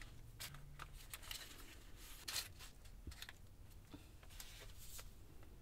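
Faint rustling and crinkling of the paper sheet as a rolled pie crust is unrolled and smoothed flat by hand, with a few soft taps; the loudest rustle comes about two and a half seconds in.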